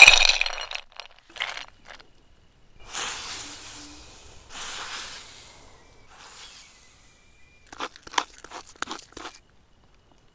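A loud crunch at the start, then two bouts of rustling, crackling noise, and a quick cluster of sharp clicks near the end, from food being crunched and handled.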